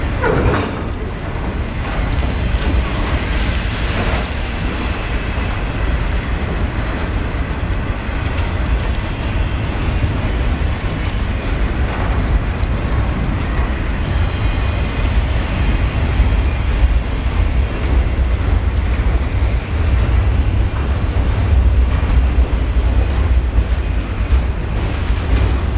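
Autorack freight cars of a long train rolling past on steel wheels: a steady, deep rumble of wheels on rail with occasional clicks.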